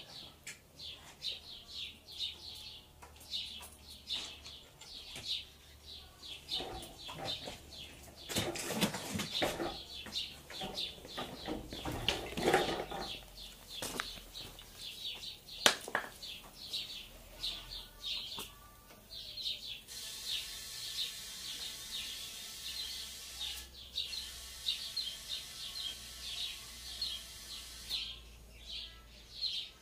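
Compressed air hissing from a compressor hose into a motorcycle tyre being inflated, for about eight seconds from two-thirds of the way through with a brief break. Birds chirp over and over throughout, and there is some handling noise with a couple of sharp clicks in the middle.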